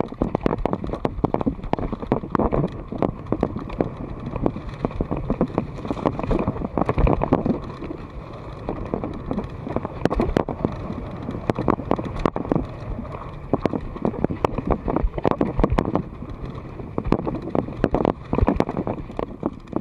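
Mountain bike riding fast over a rough dirt singletrack: tyres on dirt and leaf litter, with the bike clattering and knocking over bumps many times a second, and wind on the microphone.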